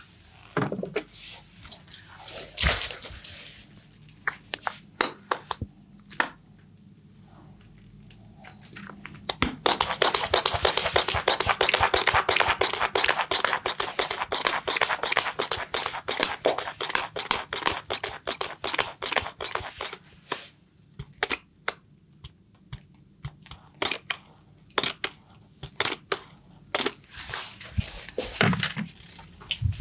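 A barber's hands massaging and rubbing a customer's head and skin: scattered taps and rubs, with a dense run of fast, crackly scratching strokes lasting about ten seconds in the middle.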